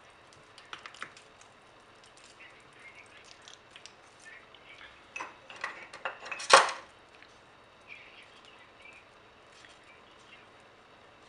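A spatula stirring and scraping thick tzatziki in a square ceramic bowl: soft scattered clicks and scrapes, then a cluster of louder ones with one sharp knock against the bowl about halfway through.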